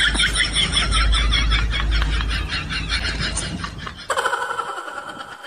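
A man laughing: a quick, high-pitched run of laughs that trails off after about three seconds. About four seconds in, a short held tone of several pitches starts and fades away.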